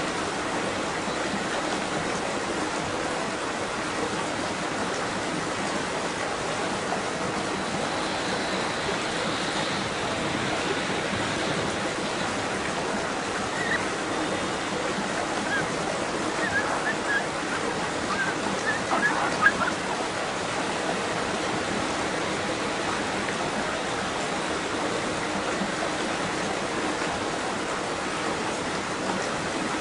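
Steady rushing water, an even wash of noise, with a few short, higher-pitched sounds about halfway through.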